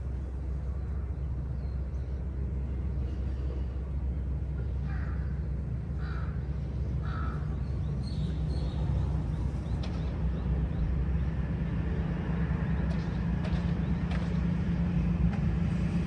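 A distant engine's low rumble grows steadily louder. Over it a crow caws three times, about a second apart, starting about five seconds in, with faint small-bird chirps a little later.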